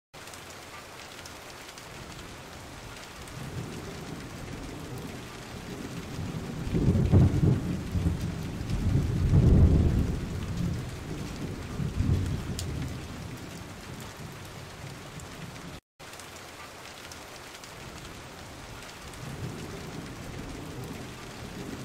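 Steady rain hiss with low rumbles of thunder rolling in and fading, the loudest about seven to ten seconds in and another building near the end. The sound cuts out for an instant about sixteen seconds in.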